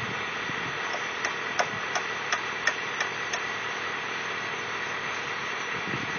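Backhoe engine running steadily, with a run of about seven sharp taps, roughly three a second, starting about a second in and stopping before the middle.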